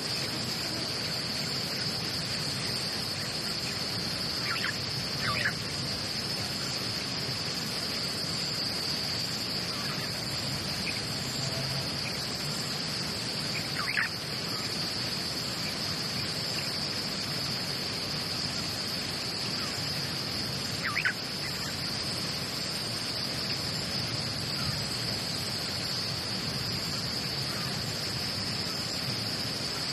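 Steady high-pitched chorus of insects, with a few short, sharp chirps about five, fourteen and twenty-one seconds in.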